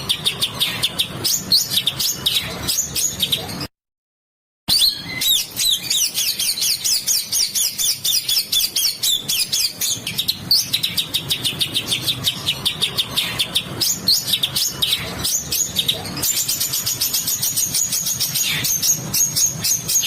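Songbird giving harsh, rattling calls ('besetan kasar') in dense, very fast strings of notes. The sound cuts out for about a second near the start, then resumes; in the last few seconds a steady high note runs under the rapid ticks.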